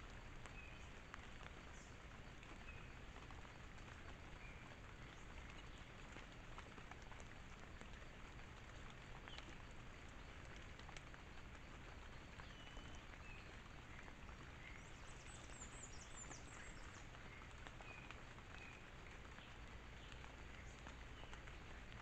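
Near silence: steady hiss with a low hum, and faint short chirps every second or two from night animals. A brief cluster of higher chirps comes about 15 seconds in, and there are a few faint clicks.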